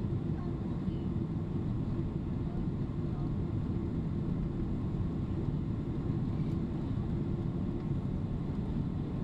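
Steady cabin noise inside a Boeing 767-300 airliner descending on approach: a low, even rumble of engines and airflow, with a faint steady hum.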